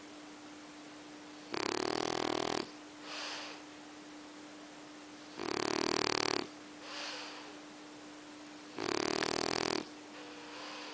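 A sleeping pet snoring: three loud snores about three and a half seconds apart, each about a second long and followed by a softer breath out, over a faint steady hum.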